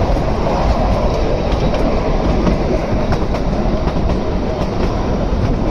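Narrow-gauge Kalka–Shimla toy train running along the track: a steady rumble of the coaches with light clicking from the wheels on the rails.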